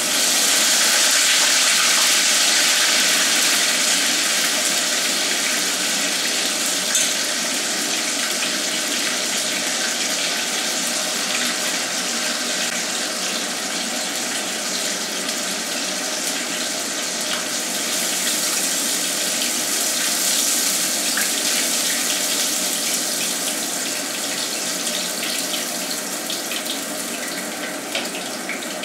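Battered pork pieces deep-frying for the second time in very hot oil: a loud, dense sizzle that starts suddenly as the pork goes in, with scattered crackles, easing slightly over the following half-minute.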